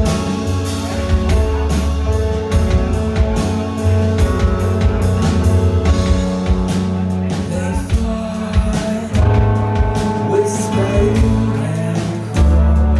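A rock band playing live, with a drum kit keeping a steady beat under a heavy bass line and sustained guitar chords.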